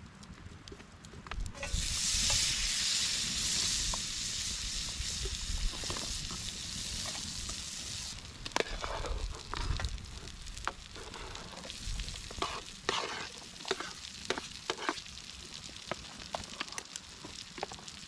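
Food sizzling in a pan over a campfire for about six seconds, cutting off suddenly, then scattered clicks and knocks, like stirring and handling the pan.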